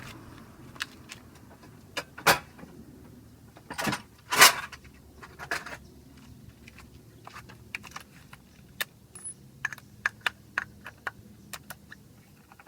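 Metal tools and drivetrain parts clinking and clanking while a motorcycle's drive case is taken apart: scattered light clicks, with two louder clanks about two and four and a half seconds in.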